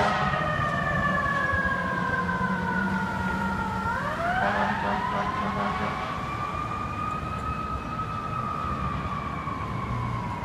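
An FDNY fire truck's siren wailing. The pitch slides slowly down, sweeps sharply back up about four seconds in, then rises and falls slowly, growing a little fainter as the rig pulls away.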